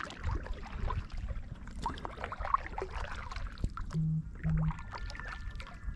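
A fishing kayak moving through calm creek water: small splashes and trickling of water along the hull as it glides forward.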